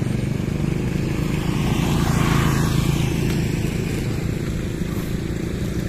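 Motorcycle engine running steadily while being ridden, swelling slightly in the middle.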